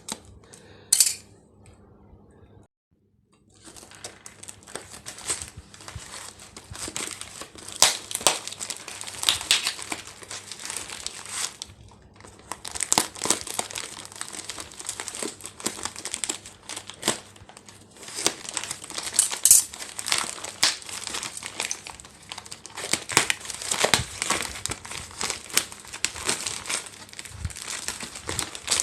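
Plastic parcel packaging crinkling and tearing as it is unwrapped by hand, with many sharp crackles. There is a short silent break about three seconds in.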